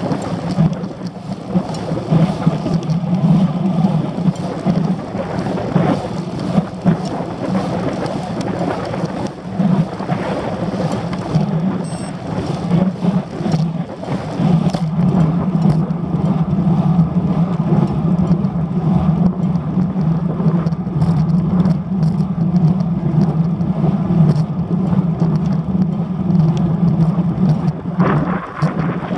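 Wind buffeting the microphone of a handlebar-mounted camera on a moving road bike: a loud, steady rushing rumble.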